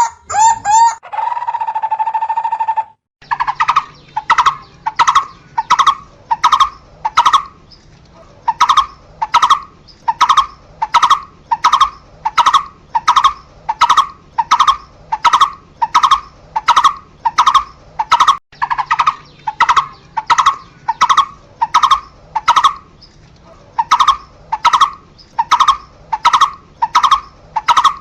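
Barbet calling: a long series of evenly repeated notes, about two a second, broken by a few short pauses. It opens with a quicker run of notes and a held trilling note lasting about two seconds, then a brief break.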